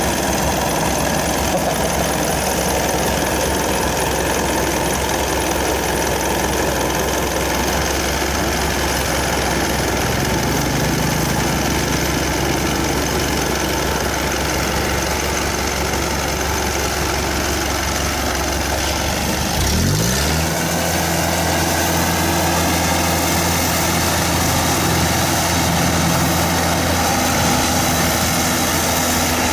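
Isuzu 93 diesel engine of a homemade tracked rice-hauling tractor running steadily. About two-thirds of the way through, the engine speed rises quickly and then holds at a higher pitch.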